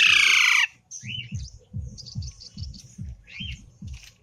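Pet parrot giving one loud, harsh screech that falls in pitch right at the start, then a string of softer chirps and squeaks. A rapid low pulsing runs underneath.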